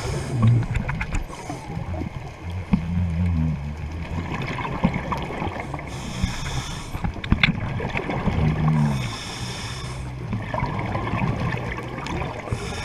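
Scuba diver breathing through a regulator underwater: bursts of exhaled bubbles hissing out about every three seconds, with low humming tones between, over a steady rush of water.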